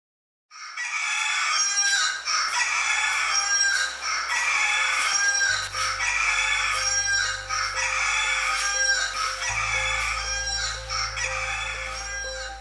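Background music: a bright figure repeating about once a second over low, sustained bass notes that change every few seconds.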